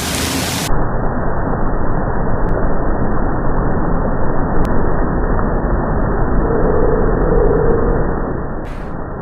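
Fountain jets spraying and falling back into the basin, a steady loud rushing of water.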